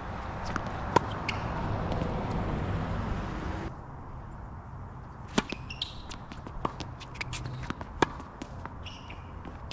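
Tennis balls struck by rackets in a rally: sharp pops about a second in, again midway, and loudest near the end, with fainter ticks between. A steady rush of noise under the first few seconds cuts off suddenly.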